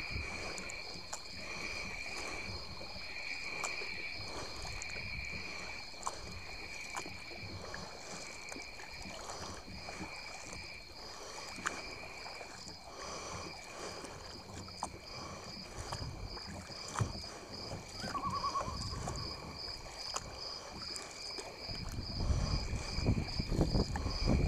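Kayak paddle strokes: the blade splashing and dripping, with water washing against the bow. A steady, pulsing insect chorus goes on behind, and wind rumbles on the microphone near the end.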